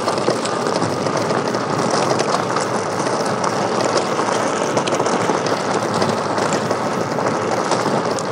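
Steady rushing wind noise on the microphone in strong wind, with fine crackling throughout.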